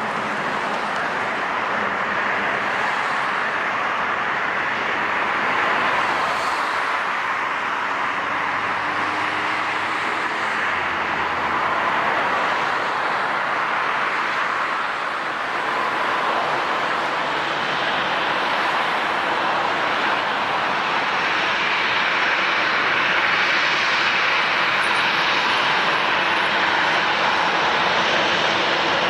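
Jet airliner engines running, a steady even rush of noise that grows slightly louder in the last third, with a thin high whistle near the end.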